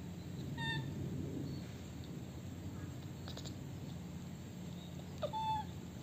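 Baby macaque giving two short squeaky calls, one about a second in and a slightly longer one that rises then holds near the end, over a steady low hum.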